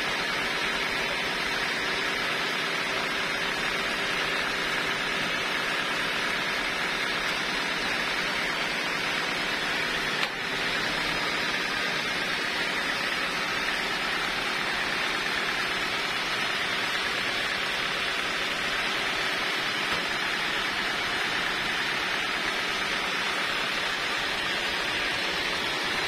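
Band sawmill running steadily without cutting, an even whirring hiss, with a single knock about ten seconds in.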